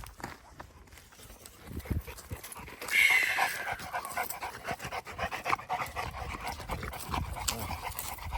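Dogs panting hard and fast. About three seconds in there is a brief high-pitched sound that falls in pitch, the loudest moment.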